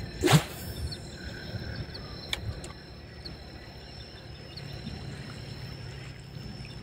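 Insects keep up a steady high-pitched chirring at two steady pitches, over a low rumble. About a third of a second in comes a brief loud whoosh, and a sharp click a little over two seconds in.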